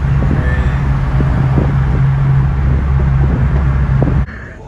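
Car engine and road noise heard from inside a moving car's cabin: a steady low drone with a few soft knocks. It cuts off abruptly near the end.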